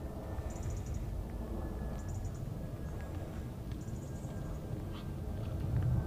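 Horse cantering on an arena's sand footing: muffled, uneven hoofbeats, with a heavier thud near the end as it takes off for a jump. Short, high chirping trills come three times in the background.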